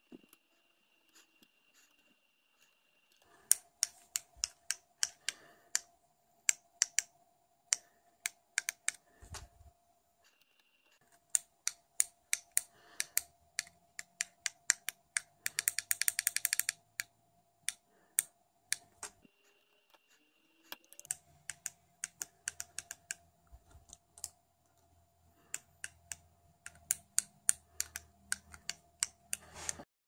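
Buttons on a four-button RF keyfob remote (2262-encoder transmitter) being pressed over and over: sharp single clicks at irregular intervals, with a quick run of rapid clicks about halfway through.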